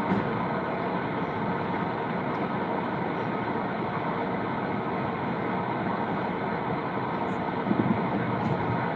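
Steady noisy background hum, with a few short low knocks near the end from the microphone stand being adjusted.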